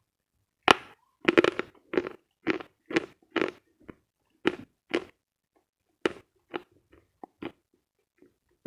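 Dry, dense eating chalk bitten with one sharp crack, then chewed in a run of crunches about two a second that thin out and grow quieter near the end.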